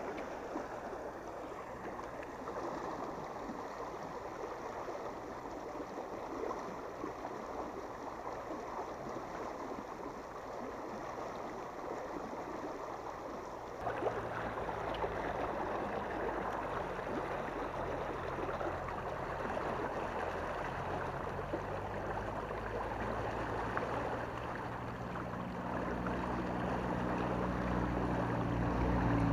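Water rushing steadily out of a sluice-gate outlet into a canal. About halfway through, a low steady engine-like hum joins it and grows louder toward the end.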